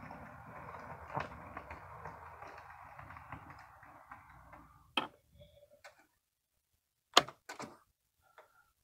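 HO scale model diesel locomotive running along the track with a boxcar, its motor whirring and wheels ticking over the rails, fading away after about four seconds. A few sharp clicks follow near the end.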